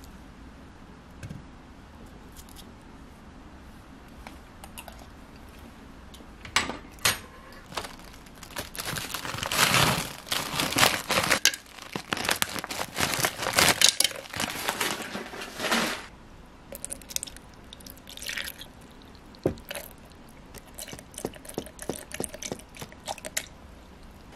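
Smoothie ingredients going into a plastic blender cup: frozen avocado slices and banana pieces clatter and rattle into the cup in a dense stretch through the middle, followed by scattered small clicks and taps.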